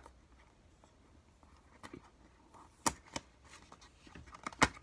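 Packaging being handled and opened by hand: a few sharp clicks and crinkles of plastic and cardboard, two about three seconds in and a louder cluster near the end, with quiet between.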